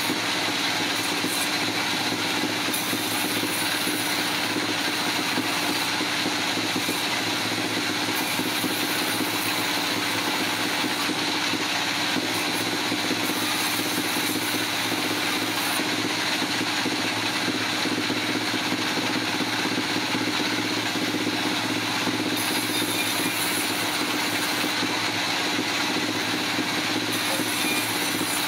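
Sawmill machinery running steadily: a constant mechanical noise with a low hum and a high whine that stay even, with no change in load and no separate knocks or cuts.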